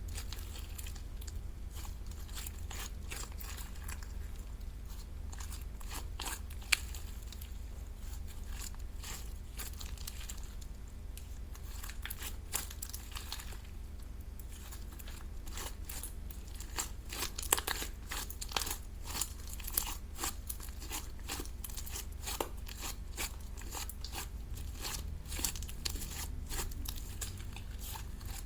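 Slime being pressed and kneaded by hand, giving off a dense run of small crackling, crunching clicks that grow busiest past the middle. A steady low hum lies underneath.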